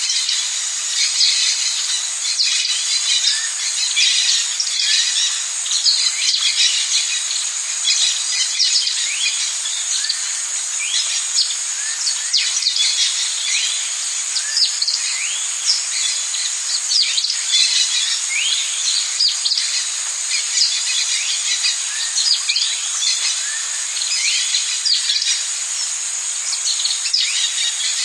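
Amazon rainforest ambience: a steady high-pitched insect drone with many short bird chirps over it, many of them sweeping down in pitch.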